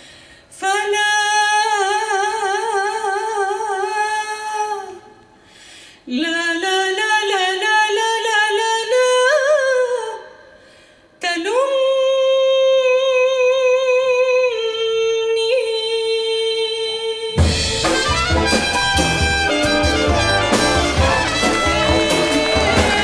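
A woman sings an unaccompanied solo in a traditional Syrian song: three phrases with short breaths between, the first with wide vibrato, the second climbing in ornamented runs, the third a long held note. About seventeen seconds in, the full big band comes in with drums, brass and saxophones.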